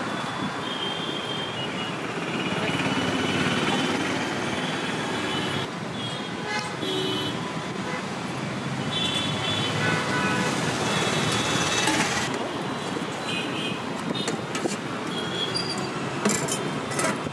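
Steady roadside traffic noise with vehicle horns tooting several times in short bursts. Near the end there are a few sharp metallic clinks from a ladle against the steel food containers.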